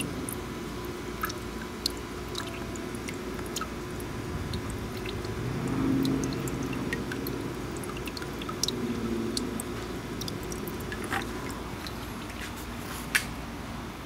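Water dripping and splashing in a plastic bucket as a hand moves among the drip irrigation tubing lying in it, with small scattered drips over a steady hum.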